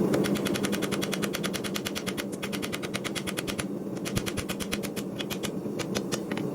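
Rapid, evenly spaced strikes, about ten a second, over a steady hum, with two short breaks in the striking.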